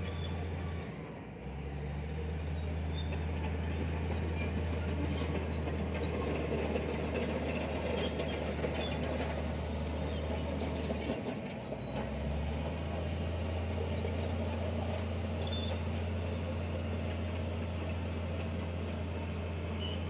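Diesel engine of a heavy earthmoving machine running steadily under load, a deep drone with rougher mechanical noise over it. The drone dips briefly about a second in and again just past halfway, and the rougher noise swells in the middle.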